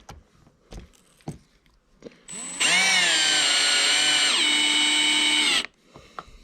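Power drill driving a screw: a few light handling clicks, then a steady motor whine for about three seconds that drops in pitch partway through as the screw bites and tightens, then stops suddenly.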